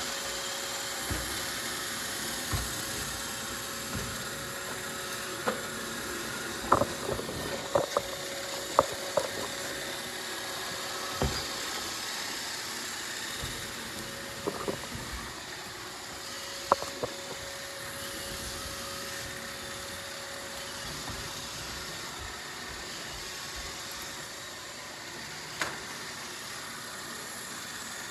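Robot vacuum (Roomba) running with a steady whir, broken by a run of sharp clicks and knocks in the middle and one more near the end.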